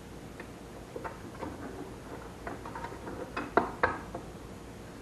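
Scattered light clicks and taps of wiring and small metal parts being handled inside a steel dash panel, with two sharper clicks about three and a half seconds in.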